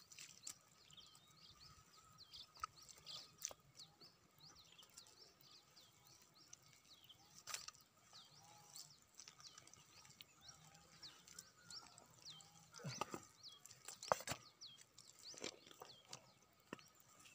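Faint wet squelches and knocks of gloved hands digging and pulling through thick swamp mud, louder twice near the end. Many short, faint, high chirps sound in the background.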